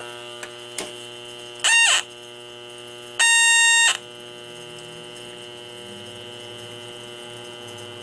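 H10B halogen refrigerant leak detector humming steadily, with two short alarm squawks: the first rising in pitch about two seconds in, the second a steady beep under a second long about three seconds in. The squawks are its signal that it senses halogen refrigerant, here R22, at a sensitivity set high enough that it fires readily.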